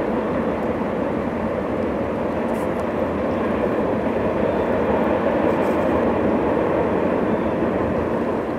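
Distant freight train rolling across a steel trestle bridge: a steady rumble of wheels on rail.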